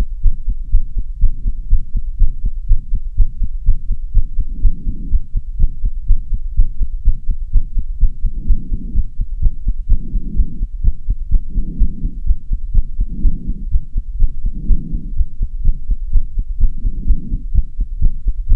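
A human heartbeat, recorded close to the chest, beating fast and regularly at about two thumps a second, racing after hard exercise. Heavy breathing swells in and out every second and a half or so.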